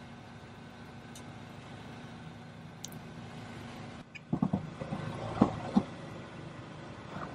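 Car engine idling steadily. About four seconds in, a quick run of short, louder creaks and knocks.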